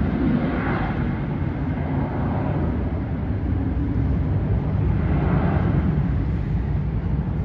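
Airbus A320's jet engines running at takeoff power: a steady rumble with gentle swells in level.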